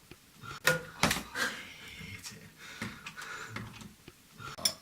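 A few sharp knocks and clicks, with softer handling sounds between them, in a small room.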